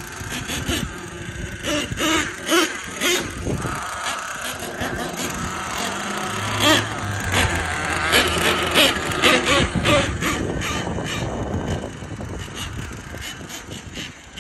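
Traxxas T-Maxx nitro RC monster truck's .28 glow engine buzzing and revving in repeated bursts as it is driven, the pitch rising and falling with the throttle.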